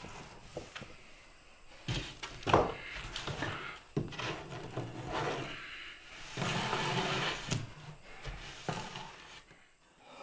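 Broken pieces of carved stone being handled on a wooden workbench: a few sharp knocks of stone on wood, then a longer scraping rub about six to seven and a half seconds in.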